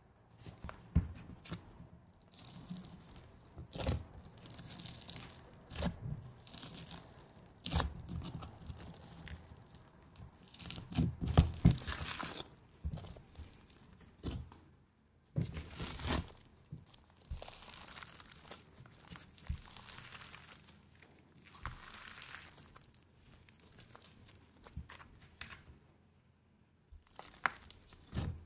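Fingers pressing, poking and squishing a fluffy slime topped with tiny red beads: crackling, crunching and sticky squelches in irregular bursts, with a short pause near the end.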